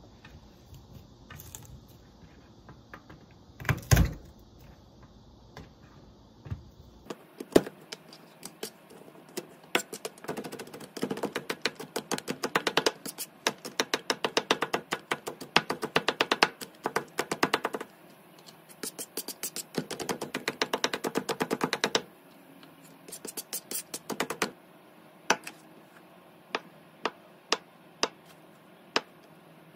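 Kitchen knife chopping garlic on a plastic cutting board: rapid runs of quick knocks on the board, then slower single strokes about once a second near the end as the knife cuts down through a block of tofu.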